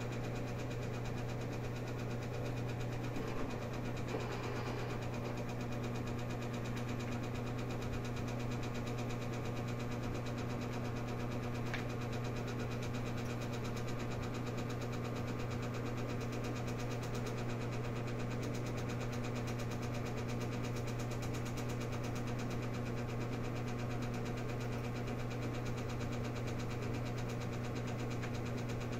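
A steady, unchanging low machine hum.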